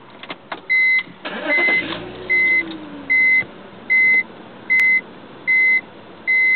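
BMW 3 Series being started: a few clicks from the ignition key, then the engine cranks and catches about a second in, its revs easing down as it settles to idle. Over this a high electronic beep repeats steadily, eight short beeps about 0.8 s apart.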